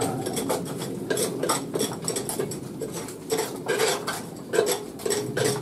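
Metal pieces being handled and knocked together: an irregular run of clinks and clanks, several a second, some strikes ringing briefly.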